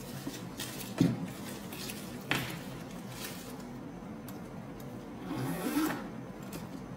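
Handling sounds of a leather handbag in plastic wrapping being turned upright and set down on a table: two light knocks about one and two seconds in, then a longer rustling scrape near the end.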